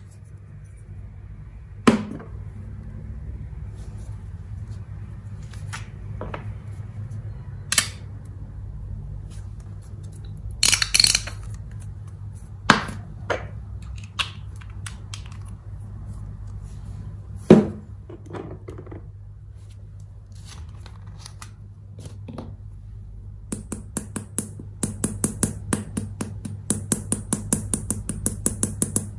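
Hands handling slime and small plastic containers: scattered sharp clicks and knocks, then a fast run of light clicking taps over the last several seconds. A steady low hum sits underneath.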